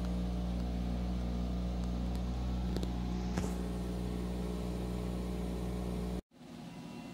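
Steady machine hum from a 50-watt CO2 laser cutter setup's running fans and pumps, with a few light clicks about three seconds in. The hum cuts off suddenly near the end, and a fainter hum follows.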